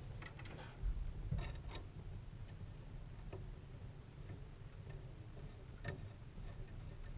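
Scattered light clicks and taps of hands and small parts working on an oil pressure gauge line and its fittings, a few irregular ticks over a steady low hum.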